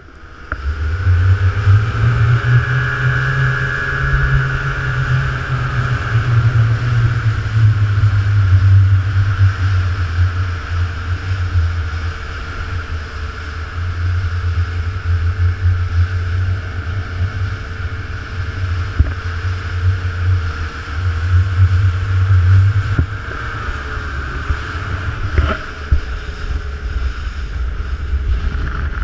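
Motorboat engine running steadily with a low rumble and a steady whine, easing off for the last few seconds.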